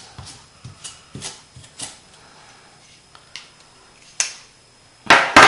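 Knife blade tapping on a wooden table as it cuts plantain leaves: a few light ticks about every half second, then a couple of single ticks, and a louder burst of knocking and scraping near the end.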